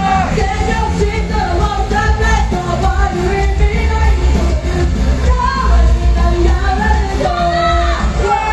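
Live pop-rock music with singing over a heavy bass-driven backing track, as heard through a live house's PA.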